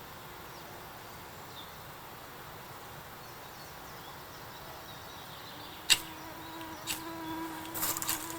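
Quiet forest ambience. Near the end an insect starts buzzing close by in a steady drone, and a sharp click sounds about six seconds in, followed by a few smaller clicks.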